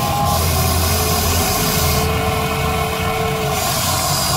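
Electric motors of a Huina RC excavator whining steadily as the arm lowers and the bucket pushes into mud, the whine starting about half a second in and stopping after about three seconds.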